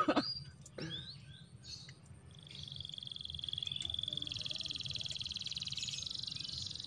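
An animal's steady, high-pitched trill of very rapid pulses, starting about two seconds in, with a couple of short chirps before it.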